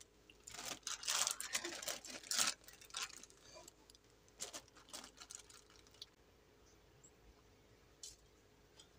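Plastic zip-top bag crinkling in bursts as ham chunks are shaken and picked out of it, then a few scattered faint clicks as the handling slows.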